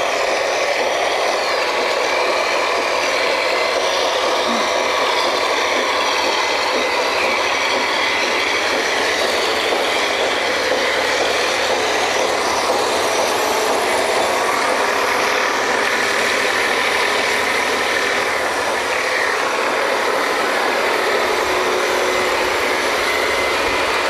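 Drilling rig machinery running: a loud, steady mechanical noise that holds even throughout, with faint steady high whines in it.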